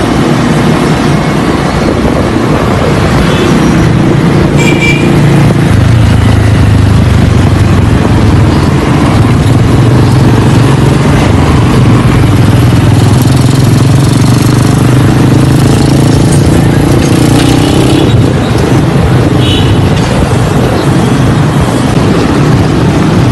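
A motor vehicle engine running steadily with road and wind noise while riding along a town street in traffic.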